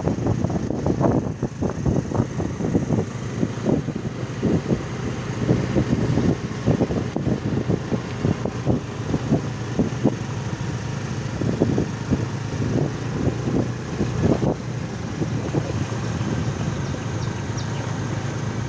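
Small motorcycle engine running at a steady cruising speed, with irregular low rumbling buffets of wind and road on the microphone.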